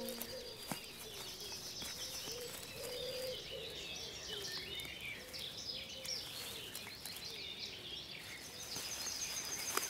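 Several small songbirds chirping and singing at once, a steady chatter of short high calls.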